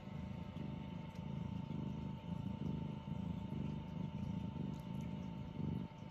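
Munchkin cat purring close by, a low steady rumble that swells and eases in waves a little under a second apart.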